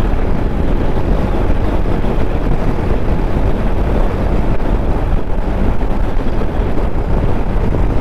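Motorcycle on the move at road speed: a steady rush of wind over the microphone mixed with engine and road rumble.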